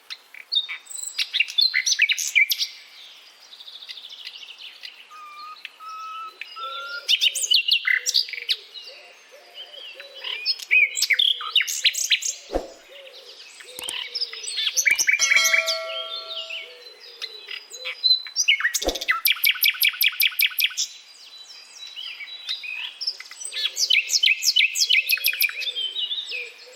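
Common nightingale singing: a run of varied phrases of clear whistled notes, fast trills and rapid strings of repeated notes, each a few seconds long with short pauses between. A fainter, lower warbling runs beneath much of it.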